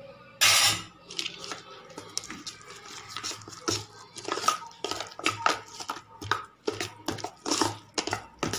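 Metal ladle stirring thick, coarse lentil vada batter in a stainless steel bowl: irregular scrapes and knocks of the ladle against the bowl, the loudest about half a second in.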